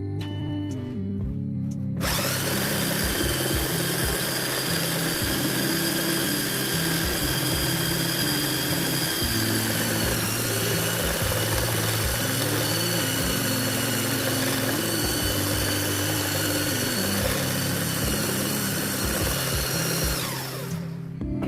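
Modern M-2561 belt sander, a 1200 W machine, switched on: its motor and belt start running suddenly about two seconds in with a steady whine, then it is switched off and winds down near the end.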